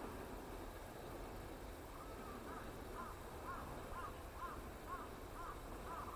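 A bird calling a faint series of short, arched, repeated notes, about two a second, starting about two seconds in. The uploader takes it for a Lanceolated Warbler or a juvenile Chestnut-eared Bunting.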